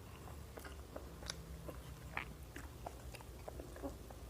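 Faint close-up eating sounds: soft chewing with scattered small mouth clicks and smacks, as rice and mutton curry are eaten by hand.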